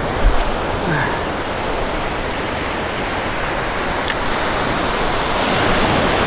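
Ocean surf washing through the shallows, a steady rushing noise that swells near the end as a wave breaks close by. A single sharp click about four seconds in.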